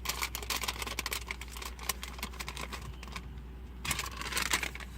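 Paper receipts being handled and shuffled: a quick run of crinkles and small clicks that stops for a moment about three seconds in, then starts again briefly.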